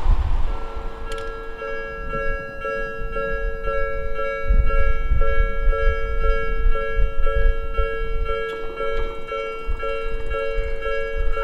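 Japanese railway level-crossing warning bell starting up about half a second in and dinging steadily about twice a second, over a low rumble.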